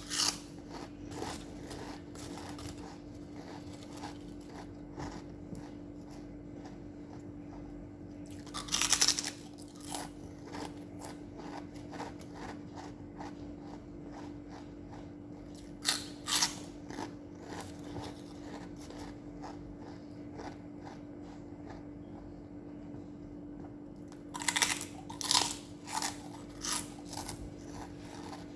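A person biting and chewing crunchy food close to the microphone: a long run of crisp crunches, with a few louder bites spread through and a cluster of them near the end, over a steady low hum.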